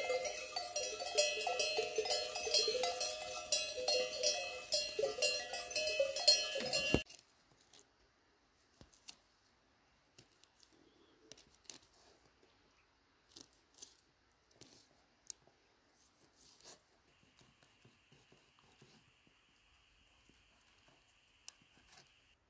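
Bells on grazing sheep clanking and ringing for about seven seconds, cutting off abruptly. Then faint, scattered clicks of kitchen scissors snipping through raw sturgeon.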